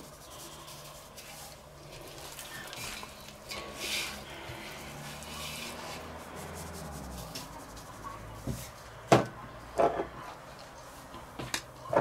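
Hands rubbing salt and seasoning into the skin of raw whole chickens in a stainless steel bowl: soft, scratchy rubbing. A few sharp clicks or knocks come about nine and ten seconds in, and again near the end.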